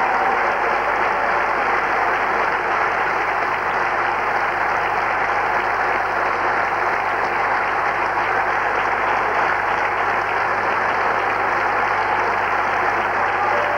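Theatre audience applauding steadily, a dense, even clapping that neither builds nor fades.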